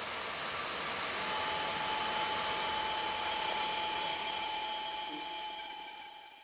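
EP07 electric locomotive sounding its horn: one long, high-pitched blast of several steady tones, starting about a second in and held for about five seconds, as the train runs in toward the platform.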